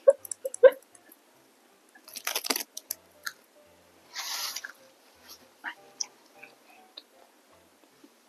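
Close-miked eating sounds: a few wet mouth clicks, a crunchy bite about two seconds in, a short hiss-like burst about four seconds in, then quieter chewing clicks.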